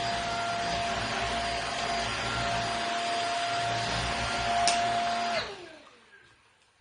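Rowenta Air Force Flex 560 Aqua cordless stick vacuum running steadily with a high whine. Near the end there is a click, then it is switched off and the whine falls away as the motor spins down.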